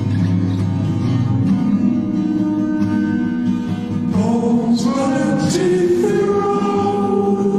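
A song playing: guitar with held notes, and singing voices that come in about halfway through.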